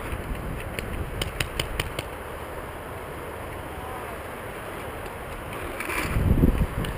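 A quick string of about six paintball marker shots, sharp pops about a second in, over low steady background noise, with a louder rush near the end.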